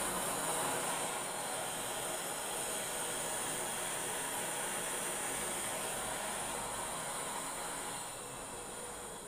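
Handheld gas torch on a gas can hissing steadily as its flame heats a copper refrigerant-line joint for brazing, a little quieter near the end.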